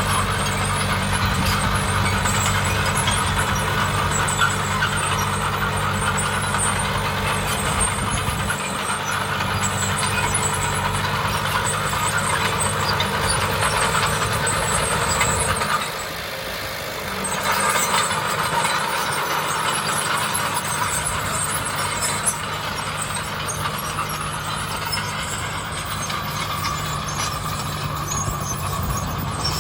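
Heavy diesel construction machinery running steadily under load, with a brief drop in level a little past halfway.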